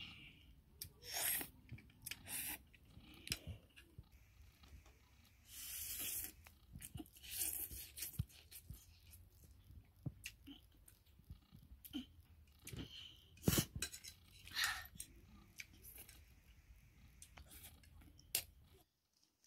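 A person eating instant noodles: slurping strands in short bursts and chewing, with a fork and spoon clicking and scraping against a ceramic bowl.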